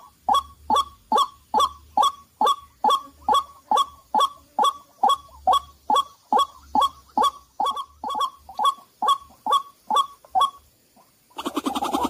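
White-breasted waterhen calls: a steady series of short, sharp notes, about two and a half a second, that stops a little before the end. Just before the end, a louder, dense, rough sound starts.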